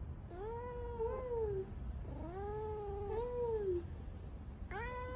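Tabby-and-white domestic cat meowing softly in long, drawn-out calls: two that rise and fall in pitch, then a third, held steady, starting near the end.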